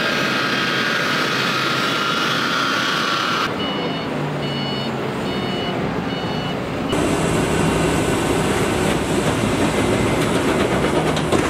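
The jet engines of a C-17 cargo plane run with a steady whine as it taxis. About three and a half seconds in, a vehicle's reversing alarm sounds as a string of short high beeps, about two a second. From about seven seconds a louder, steady machinery noise takes over.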